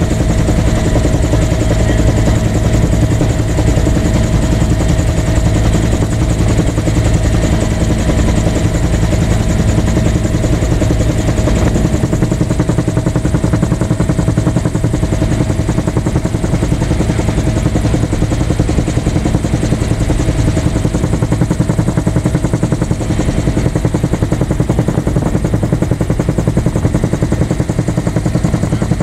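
Helicopter in steady cruising flight, heard from on board: the main rotor's rapid, even beat over a steady engine hum, unchanging in level.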